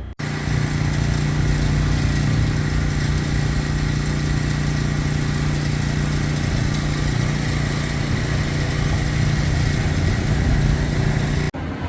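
A loud, steady mechanical drone with a strong low hum and a faint high whine, unchanging throughout, like an idling engine. It starts and stops abruptly with the edits.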